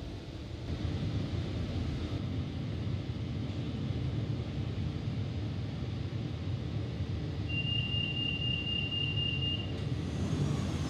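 Steady low hum inside a stopped E32000 Marmaray commuter train car. About two-thirds of the way in, a rapid high-pitched beeping sounds for about two seconds: the warning that the doors are about to close.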